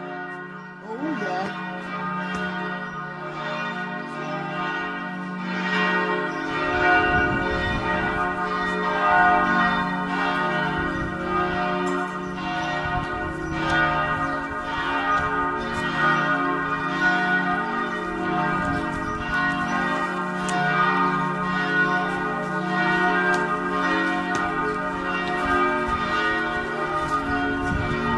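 Bells of the Church of the Holy Sepulchre ringing continuously, many bells struck over and over in a dense peal that grows louder about six seconds in. It is the Friday noon ringing that marks the hour of Jesus's crucifixion.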